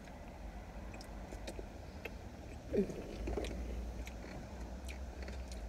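Quiet eating sounds: chewing and small clicks of plastic spoons in paper food bowls, over a steady low rumble inside a vehicle. There is a brief low voice sound a little under three seconds in.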